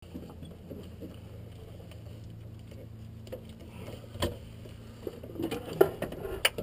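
A steady low hum under scattered knocks, taps and rustles as the crew handle helmets and gear in a helicopter cockpit. The engines are not yet running; the knocks come more often toward the end.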